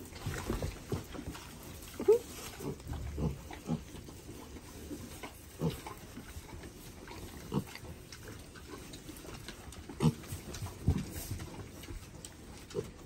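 Piglets grunting in short, low grunts at irregular intervals, with louder ones about two seconds in and again near ten seconds.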